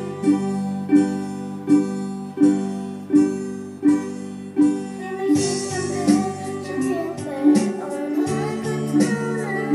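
Ukulele strummed in a steady rhythm, each stroke ringing on, with a girl's singing voice coming in about halfway through.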